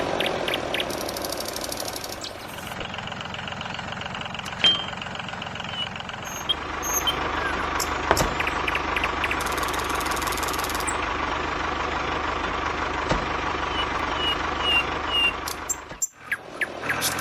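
Truck-like engine running steadily, with a few sharp clicks, cutting off abruptly near the end.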